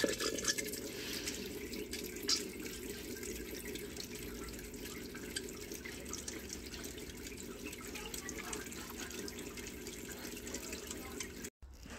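Automatic sprout grower's rotating sprinkler arm spraying water over trays of peanuts and soybeans: a steady splashing patter over the even hum of its pump. It starts right at the outset and cuts off suddenly near the end.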